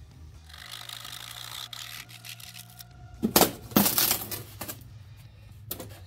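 Two sharp crunching knocks about halfway through and a shorter one near the end, from hardened sculpt-a-mold over foam scenery being cut and broken apart.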